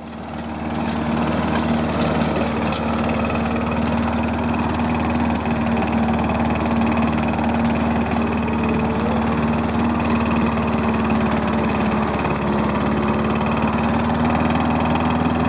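Craftsman walk-behind lawn mower's engine running steadily at a constant speed, breathing through a homemade cold air intake mounted on the handle. The sound rises in over about the first second.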